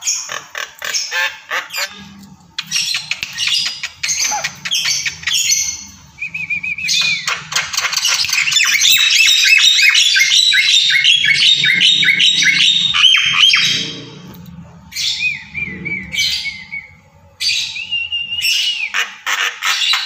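Javan mynas chattering: dense runs of rapid harsh squawks mixed with short repeated whistled notes, loudest in one long unbroken run through the middle, with brief pauses between bouts.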